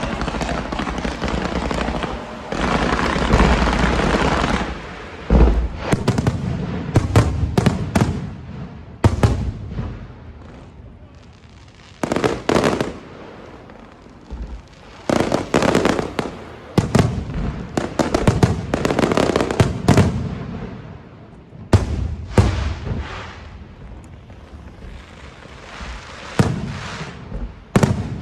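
Fireworks going off: about five seconds of dense continuous crackling and booming, then sharp bangs and crackling bursts coming in irregular clusters with quieter gaps between.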